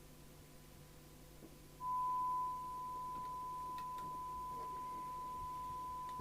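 A steady test tone, one pure note, from the loudspeaker of a Binatone Route 66 CB radio on receive as it picks up the signal generator's modulated test signal. The tone comes in about two seconds in, is louder for a moment, then settles and holds.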